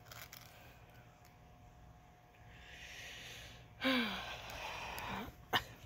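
A person breathes in, then lets out a breathy sigh whose voice falls in pitch, about halfway through. A single sharp click follows near the end.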